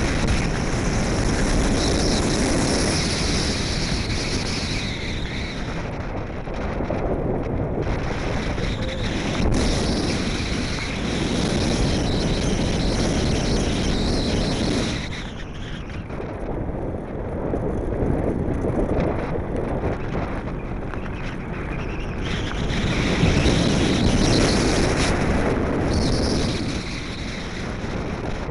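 Wind rushing over the microphone of a handheld camera aboard a moving Blokart land yacht, with the wheels rumbling on the hard lakebed beneath. The rush swells and eases several times, easing off briefly about halfway through.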